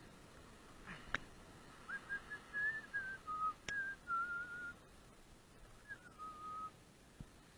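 A person whistling a short tune: one clear, wavering tone stepping between a few notes in several short phrases. There are two sharp clicks, one just before the whistling starts and one in the middle of it.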